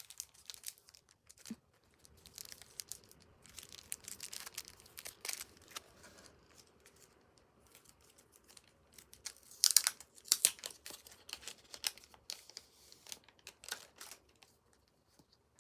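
Packaging being crinkled and torn open by hand, in irregular crackles with louder spells about ten and twelve seconds in.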